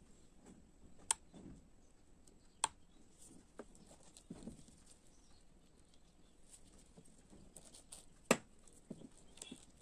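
Sharp clicks and soft taps as pieces of bel (wood apple) pulp are dropped into two glasses of juice: three loud clicks, about a second in, under three seconds in and near the end, with fainter clicks and soft dull thuds between.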